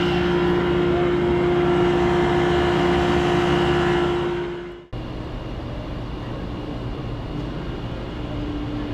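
Commercial refrigeration condensing unit running: a loud, steady mechanical hum with a strong tone. About four seconds in it fades and gives way to a quieter, lower steady hum.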